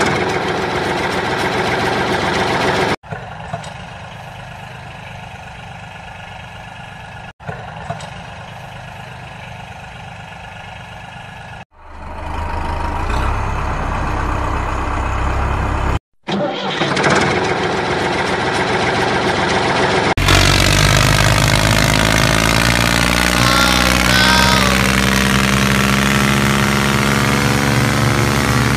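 Tractor engine sound idling and running, broken by several abrupt cuts. About halfway through a deep engine note starts up, and in the last third it runs louder and steadier.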